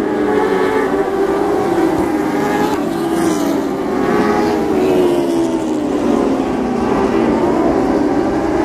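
Several dwarf race cars' engines running at racing speed, their pitches rising and falling and overlapping as the cars circle the dirt oval.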